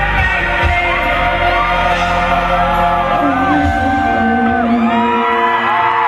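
Live concert sound of a female pop singer with band accompaniment, recorded from among the audience in a large hall, with fans whooping and screaming long, sliding cries over the music. The deep bass drops away about halfway through.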